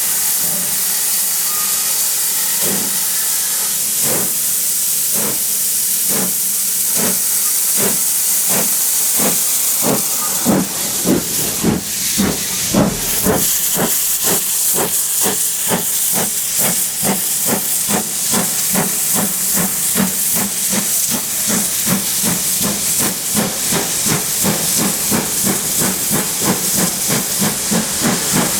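Steam locomotive pulling away under a strong steam hiss. Its exhaust chuffs begin a few seconds in and speed up steadily as it gathers speed, from about one a second to three or four a second.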